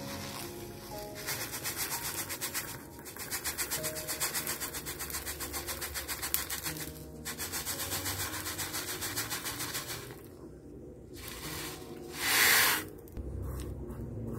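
Small crushed white decorative stones pouring off a sheet of paper into a small clay pot: a dense stream of tiny rattling clicks in three runs, then a brief louder rush about twelve seconds in.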